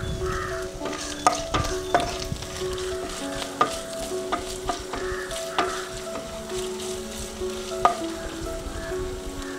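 Coconut pieces frying in hot coconut oil in a non-stick pan, sizzling steadily while a wooden spatula stirs them, with several sharp knocks of the spatula against the pan.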